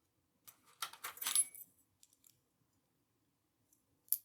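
Small metal clinks and rattles of tools against a padlock's metal body while working out a crimp on its core: a cluster of sharp clinks about half a second to a second and a half in, then a couple of sharp clicks near the end.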